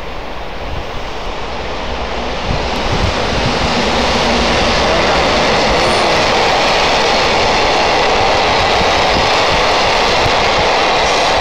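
Freight train of tank wagons behind an EH510 electric locomotive rolling past, wheels on rail making a steady, dense noise. It grows louder over the first few seconds, then holds.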